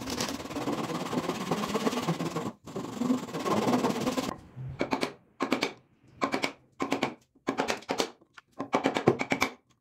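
Hand backsaw cutting the tenon of a bridle joint in wood: a run of fast, continuous sawing strokes, then, from about four seconds in, shorter separate strokes.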